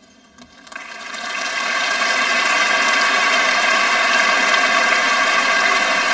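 Audience applauding: a few scattered claps, then the applause swells over about a second into a steady, loud wall of clapping.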